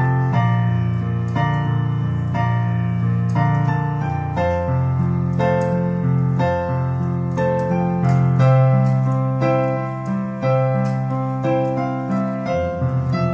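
Instrumental piano music: a gently paced melody of single notes over held low chords.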